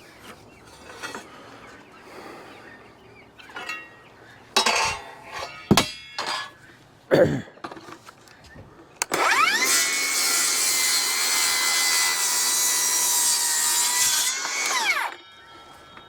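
Electric power saw spinning up, cutting through a wooden framing stud for about six seconds with a steady whine, then winding down. A few knocks from handling lumber come before the cut.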